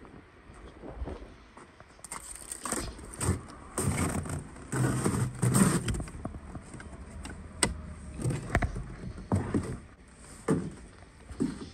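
Footsteps crunching through snow, then keys rattling at a door, followed by several sharp knocks and clunks as the door is worked and footsteps go inside.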